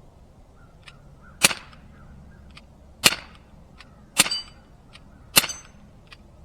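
Umarex Glock 19 CO2 BB pistol firing four shots, sharp cracks about one to one and a half seconds apart, the last two followed by a short ring.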